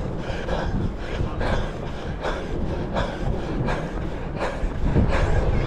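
A runner's hard breathing just after finishing a 5 km run, one breath about every three-quarters of a second, over a steady rumble of wind on the microphone.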